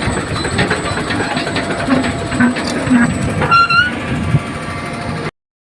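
Excavator's diesel engine running, mixed with indistinct voices. A short rising whistle-like tone comes about three and a half seconds in, and the sound cuts off abruptly near the end.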